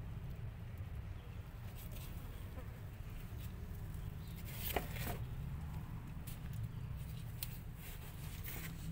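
Kittens nursing and crawling over their mother cat: soft scratching and clicks of small paws and claws, the sharpest about five seconds in, over a steady low rumble.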